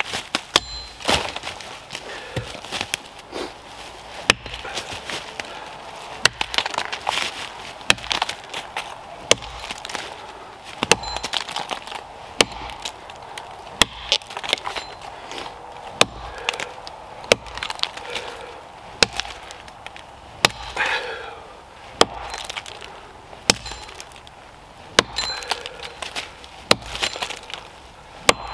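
Rinaldi Calabria axe chopping into a small standing tree trunk: a long series of sharp cracking blows, about one a second, as the blade bites into the wood.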